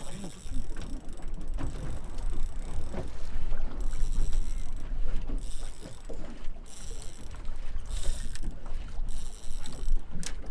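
Spinning reel cranked in spells of about a second with short pauses, its gears whirring as line is wound in against a hooked nurse shark.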